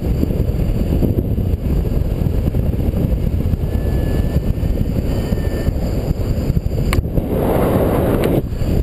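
Airflow of paraglider flight buffeting the camera microphone: a steady low rumble, with a louder rush for about a second near the end.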